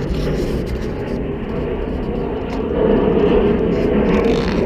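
Steady low outdoor rumble, growing louder about three seconds in.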